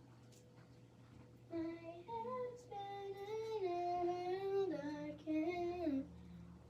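A girl's voice sings a short tune from about a second and a half in, in held notes that step up and down in pitch, ending about a second before the end.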